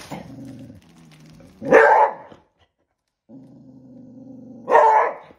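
Beagle barking twice at the turkey held out of its reach, about two and three-quarter seconds apart, with a low, steady growl between the barks.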